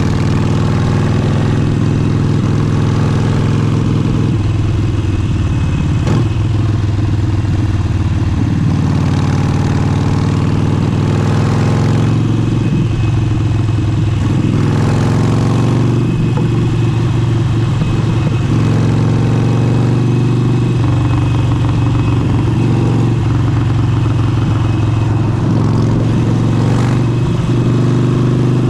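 Harley-Davidson Forty-Eight's 1200 cc air-cooled V-twin running through an aftermarket exhaust. The engine note is steady, shifting a little every few seconds.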